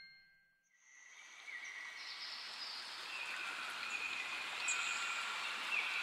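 Rushing water of a small waterfall and mountain stream fading in about a second in and building to a steady hiss, with thin, steady high-pitched tones over it.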